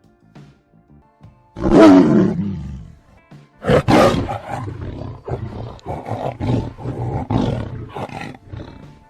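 Tiger roaring, with faint background music. About a second and a half in comes one long roar that falls in pitch. A second loud roar follows, then a run of shorter roars at about two a second.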